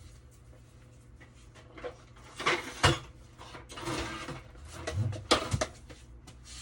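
Quiet at first, then a run of irregular knocks, clunks and rustling as hard objects are handled and set down, with two sharper knocks standing out. No vacuum motor is running.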